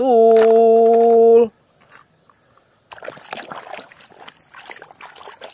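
A hand washing a plastic toy bus in a basin of muddy, foamy water: irregular splashing and sloshing that starts about three seconds in.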